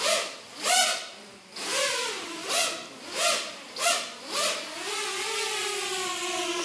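Neros Archer FPV quadcopter's electric motors and propellers whining in flight. The pitch surges up and falls back about seven times, roughly one every 0.7 seconds, as the throttle is punched. It then holds a steadier tone for the last second and a half and stops at the very end.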